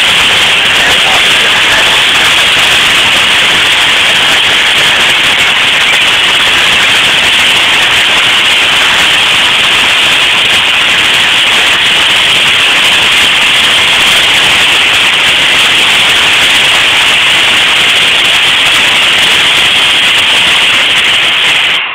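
GS&WR J15-class 0-6-0 steam locomotive No. 186 blowing off steam while standing: a loud, steady hiss.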